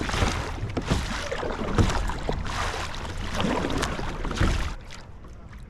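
Kayak paddle strokes swishing and splashing through the water, about one a second, easing off near the end.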